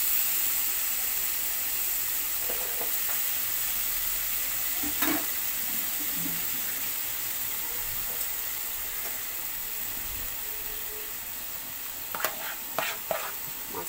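Marinated chicken breasts sizzling in a nonstick grill pan over a low gas flame, a steady hiss that eases slightly over time. A few light knocks sound near the end.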